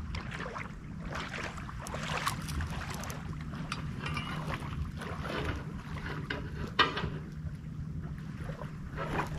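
Wind buffeting the microphone over a low steady rumble, with irregular splashing and sloshing of shallow water and one sharper splash near the end.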